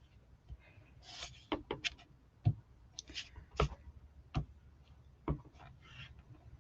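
Scattered light taps and knocks on a work table, about one a second through the middle, mixed with short soft rustles of handling craft supplies.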